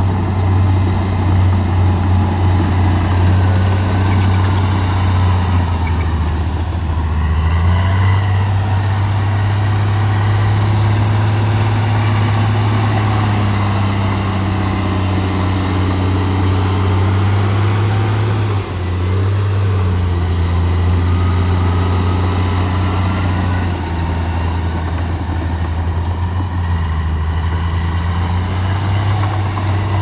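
Heavy diesel machinery engines running steadily, their pitch shifting a few times as the revs change.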